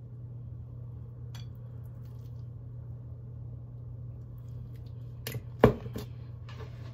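Spice shaker being handled while seasoning a raw T-bone steak: faint taps, then a few sharp clacks a little past five seconds in, the loudest one a single knock. A steady low hum sits underneath.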